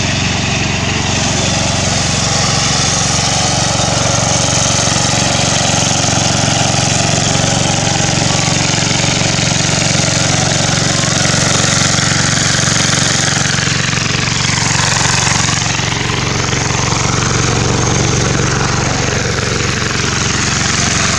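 Hand tractor's small engine running steadily, its note dipping and recovering twice in the second half.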